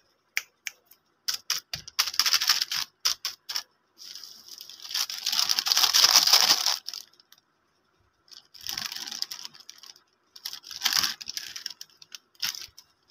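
Plastic wrapper of a Prince mini fingers biscuit packet crinkling and being torn open by hand. It comes in short bursts with gaps, and the longest, loudest tear is near the middle.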